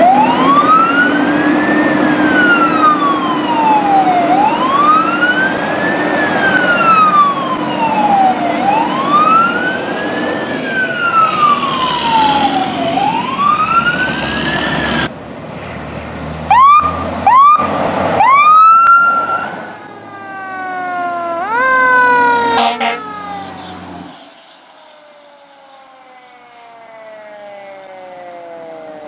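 Fire apparatus sirens. A slow electronic wail rises and falls about every four seconds over a steady truck drone. After a cut come quick siren yelps, two short loud blasts and a rising sweep, then falling siren tones that die away to a faint wind-down near the end.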